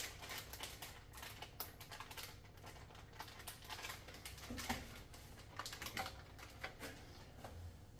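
Irregular light clicks, taps and rustles of packaging and paper being handled.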